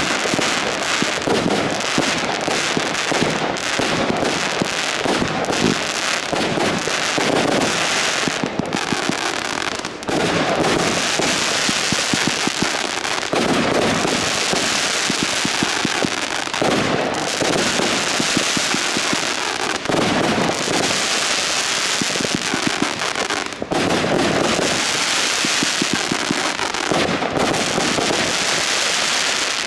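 Consumer fireworks going off in a dense, continuous run of bangs and crackling, mixed with stretches of rushing hiss.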